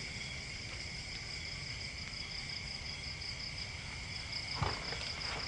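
Night chorus of crickets trilling steadily, one higher pulsing trill over a lower steady one. A single soft low thump about four and a half seconds in.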